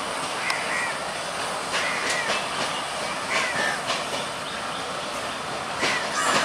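Yellow broad-gauge bogie oil-tanker wagons of a freight train rolling through on a steady rumble. The wheels clack irregularly over rail joints, several times, with two clacks close together near the end.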